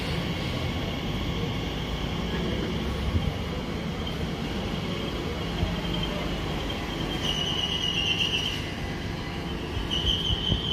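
Elizabeth line Class 345 electric multiple unit running past the platform: a steady low rumble of wheels on rail, with a high squeal about seven seconds in and again near the end.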